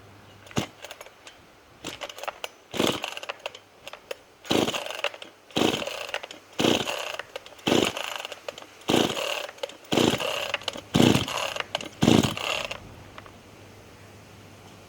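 Small two-stroke chainsaw being pull-started: about nine quick pulls on the recoil starter, roughly one a second. Each pull spins the engine over briefly without it catching and running.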